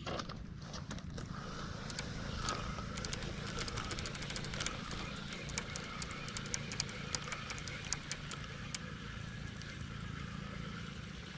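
A small engine running steadily, with many faint, sharp clicks scattered through the middle.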